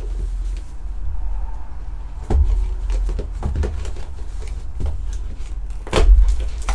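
A cardboard trading-card hobby box being handled and opened: scattered taps, scrapes and rustles of cardboard, with a sharper knock a little over two seconds in and a louder one near the end.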